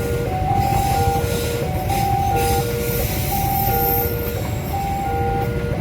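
A train running past with a steady low rumble, under a warning alarm that alternates between a high and a low tone about every 0.7 seconds, of the kind sounded at a railway level crossing.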